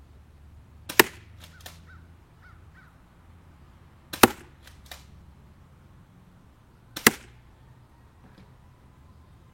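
Spring-powered pump-action airsoft shotgun firing three shots about three seconds apart, each a sharp crack, the first two followed by a couple of quieter clicks.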